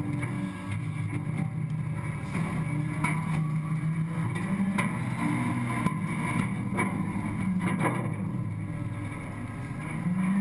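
Scorpion automated side-loader refuse truck's engine and hydraulics running steadily, with several sharp metal knocks. Near the end the engine note rises as the packer blade starts to swing down into the hopper.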